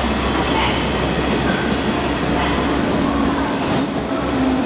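JR West 117-series electric train pulling into a station platform, with a steady rumble of its wheels on the rails as the cars pass close by. A brief high squeal comes near the end.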